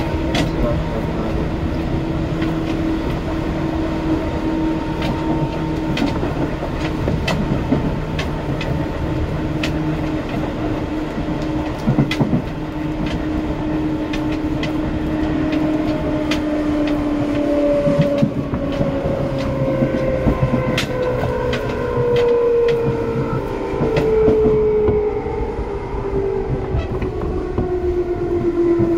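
Seibu 2000 series electric commuter train running, its traction motors humming over the rumble of the wheels, with regular clicks of the wheels over rail joints. From about 18 seconds in, the motor tones slide steadily down in pitch as the train slows, the motors still groaning under braking.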